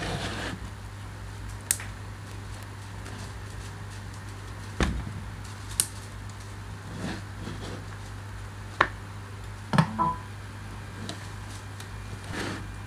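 A steady low electrical hum with scattered clicks and light knocks as wires, a speaker driver and a cardboard speaker box are handled, about six sharp ones in all.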